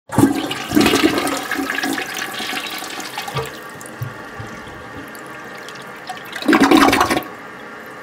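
Toilet flushing. A loud rush of water fades over the first three seconds, a second loud gush comes about six and a half seconds in, and then a quieter steady hiss follows.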